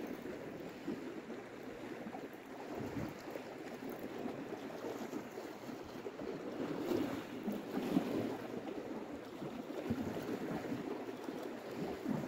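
Small sea waves washing against shore rocks, a steady rushing with some wind on the microphone.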